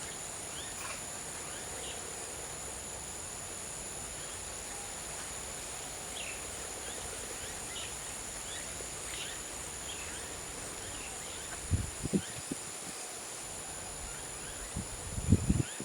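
A steady, high-pitched insect chorus with faint, short bird chirps scattered through it. A few low thumps come about twelve seconds in and again near the end.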